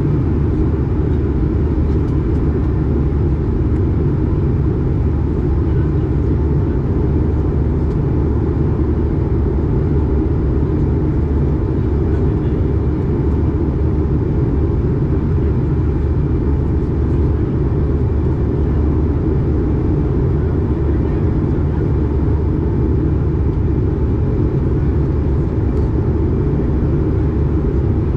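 Airbus A220 cabin noise on descent: a steady low drone of its Pratt & Whitney PW1500G geared turbofan engines and rushing airflow, heard inside the cabin near the wing.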